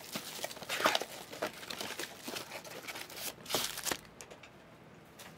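Foil wrapper of a Panini Select football trading-card pack crinkling and tearing as it is opened by hand. The crinkling stops about four seconds in.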